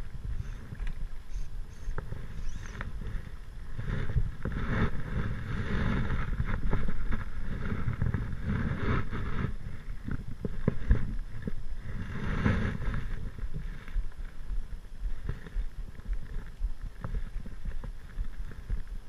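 Wind rumbling on a camera microphone, with louder stretches of splashing and rustling from about four seconds in as a small bass is played on a fly rod and landed.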